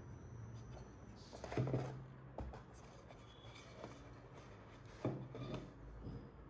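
Rubbing and light knocks of packaging and accessories being handled during an unboxing, with two louder bumps about a second and a half in and about five seconds in.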